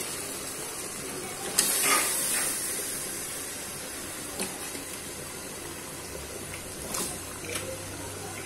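Spiced masala paste sizzling steadily in a metal cooking pot as raw chicken pieces go in, with a few clattering knocks of the pieces and spatula against the pot, the loudest about two seconds in.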